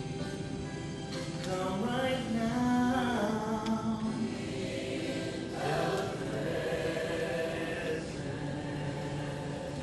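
Choral music: voices singing slow, held notes.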